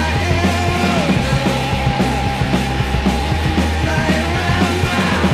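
Loud punk-style rock recording: a full band playing at an even level, with steady drum hits and a wavering melody line on top.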